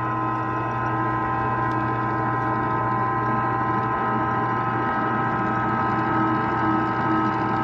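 Furnace condensate pump motor running with a steady electric hum; the technician says the pump is clogged with dirt, and its alarm has tripped.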